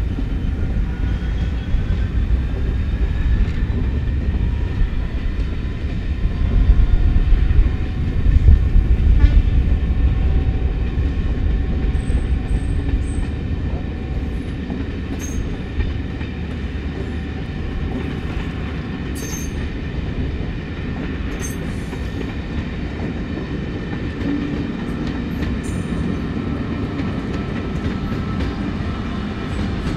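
Locomotive-hauled passenger train of Class 66 diesels and coaches rolling past: a deep, continuous rumble, loudest around seven to nine seconds in, with wheels clattering over the rail joints as the coaches go by.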